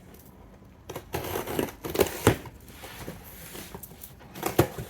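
A shipping package being torn open and its wrapping crinkled and handled, in irregular rustling bursts with a quiet moment at the start.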